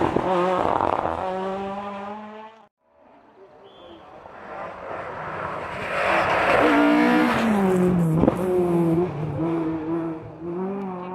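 Rally car engines at full throttle: one car's engine pulls away and fades, the sound cuts off abruptly about two and a half seconds in, then another rally car approaches, its engine note climbing and stepping through gear changes as it passes close with a sharp crack near the middle, and then draws away.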